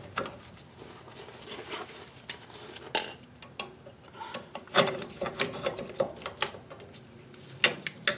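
Irregular small metallic clicks and clinks as pliers stretch a coil spring and hook it onto the drum brake shoe and self-adjuster hardware. The sharpest clicks come about five seconds in and near the end.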